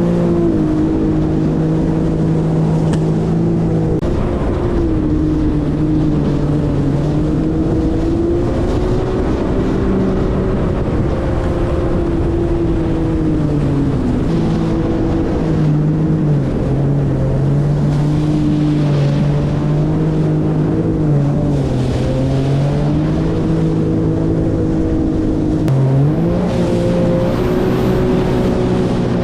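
Yamaha WaveRunner VX Deluxe's three-cylinder engine running under way, its pitch dipping and rising again several times as the throttle is eased and reopened, over a steady rushing noise of water.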